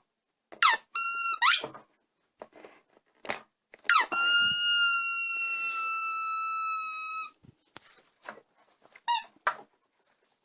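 Electronic sound effects from a battery-operated toy's small speaker: a couple of short, high, squeaky sweeping tones, then a long high tone of about three seconds that slowly sinks in pitch, and another short sweep near the end, with light clicks and knocks of plastic in between.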